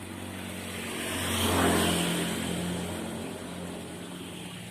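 A motor vehicle passing by: its sound swells to a peak about a second and a half in and then fades away, over a steady low hum.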